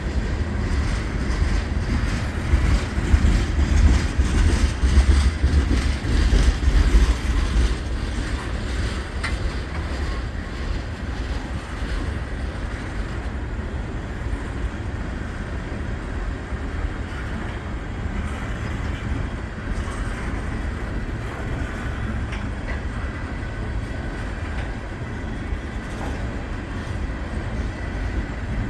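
Norfolk Southern mixed freight train's cars rolling past, a steady low rumble with the wheels clicking over the rails, loudest for the first seven or eight seconds.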